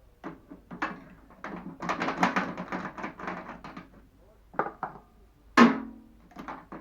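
Clatter and knocks of metal parts and tools being handled while a microwave oven is taken apart: a busy burst of rattling knocks, then a few separate strikes, the loudest about five and a half seconds in, which rings briefly like sheet metal.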